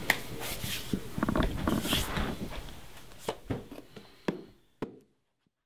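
Light handling noise: soft rustling with a few sharp clicks, fading away and then cutting to silence near the end.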